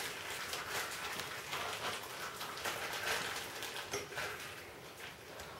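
Plastic bag crinkling and rustling in the hands while soft homemade ice cream is squeezed and scraped out of it with a spoon.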